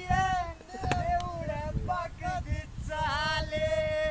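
A voice singing a melody in long held, wavering notes, over a low rumble; the singing cuts off abruptly at the end.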